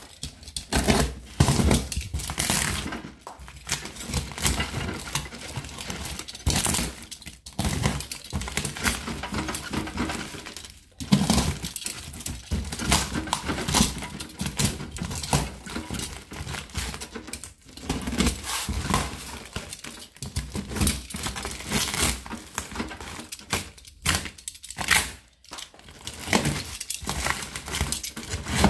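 A cardboard shipping box wrapped in packing tape being slit with a box cutter and torn open by hand: a steady run of crinkling, scraping and tearing of cardboard and tape, with sharp rips here and there.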